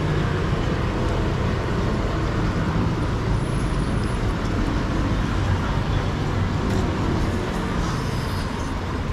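Steady road traffic: vehicle engines running close by, a continuous low rumble.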